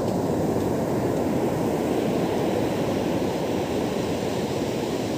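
Steady rush of rough surf breaking on a sandy beach, mixed with wind noise on the microphone.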